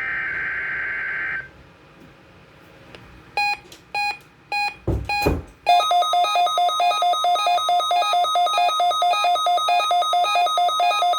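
NOAA Weather Radio SAME digital header burst: a harsh, screechy data tone lasting about a second and a half. After a pause come a few short beeps and a low thump, then, about halfway in, a weather alert radio's electronic alarm sets off, loud and pulsing rapidly, triggered by the weekly test signal.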